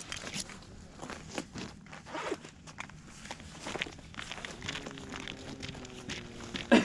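Boots crunching and scuffing on snow-covered lake ice, in short irregular crunches. A faint steady hum comes in for a couple of seconds past the middle.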